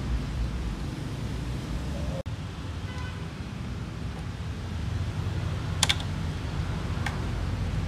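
Light plastic clicks from handling a fuel pump sender unit, with two sharper clicks about six and seven seconds in, over a steady low background rumble.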